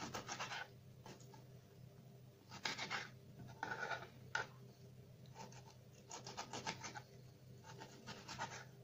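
Kitchen knife chopping lemons into small pieces: short runs of quick, scratchy cutting strokes with pauses between.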